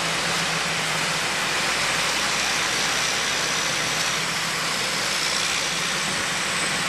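Diesel engine of a loaded semi-truck running steadily as it pulls a trailer of sugar beets through soft, muddy field.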